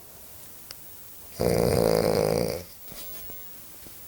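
A sleeping man snoring loudly: one long snore starting about a second and a half in and lasting just over a second, with quiet breathing before and after.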